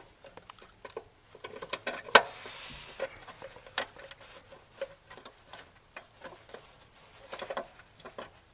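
Scattered light clicks and taps of a metal access cover plate being fitted back in place by hand. There is one sharp knock about two seconds in, followed by a brief scrape.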